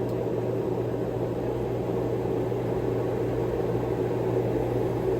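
Steady low mechanical hum of a running motor, even and unchanging throughout.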